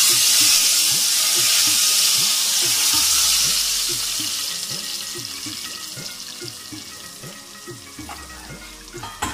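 Hot desi ghee and oil poured over a pot of chickpea and potato curry as a tempering, sizzling loudly at once and then fading slowly as the bubbling dies down.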